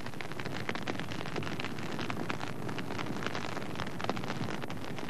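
Dry grass and scrub burning, a dense steady crackling of many small pops over a soft hiss.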